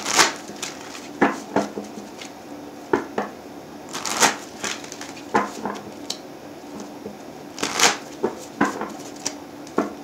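A deck of reading cards being shuffled by hand: irregular soft slaps and swishes of the cards, the louder ones about four and eight seconds in.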